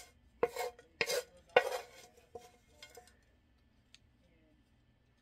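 Wooden spatula scraping a frying pan, pushing out a chunky bacon-and-mushroom mixture in about five short strokes, then a faint tick.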